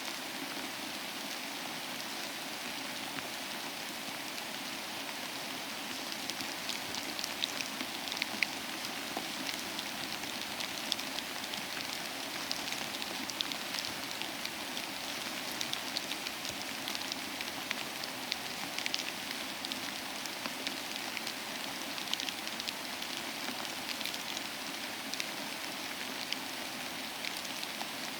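Steady rain falling, an even hiss with scattered sharp drop hits that become more frequent after the first few seconds.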